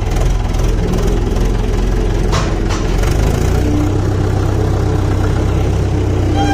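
Old Hindustan 80 tractor's diesel engine running steadily as the tractor pulls away, its low rumble growing stronger a little after three seconds in. Two short clicks sound about two and a half seconds in.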